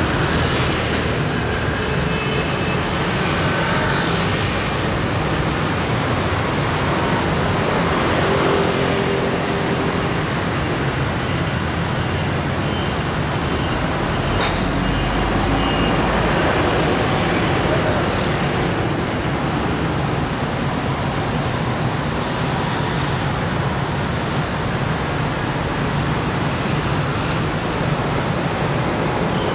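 Steady, dense road traffic noise from a mass of motor scooters, motorcycles and cars.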